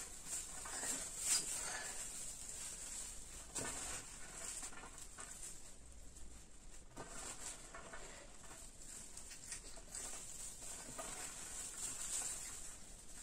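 Shredded cabbage and carrot being lifted and tossed by hand, an irregular rustling with now and then a sharper rustle as a handful drops back onto the heap.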